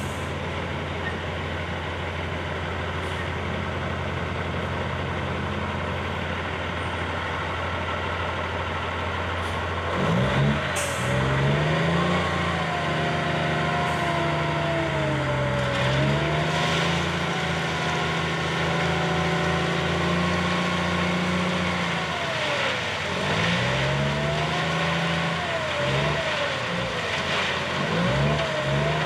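Diesel dump truck engine running at low revs, then about ten seconds in it revs up and stays high, dipping and climbing again, as the hydraulic hoist raises the loaded bed to tip gravel. A short hiss of air comes as the revs rise.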